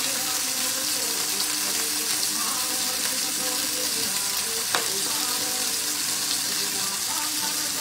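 Linguine cooking directly in tomato sauce in a wide steel frying pan, all'assassina style, sizzling steadily as it is stirred. One sharp knock a little past halfway.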